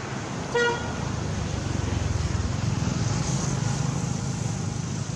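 Steady low rumble of distant road traffic, swelling a little in the middle, with one short high beep about half a second in.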